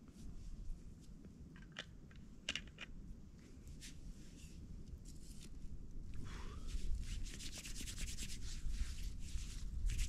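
Footsteps rustling and crunching through dry fallen leaves on a trail. Scattered crackles come first, then a dense run of crunching over the last few seconds, over a low rumble.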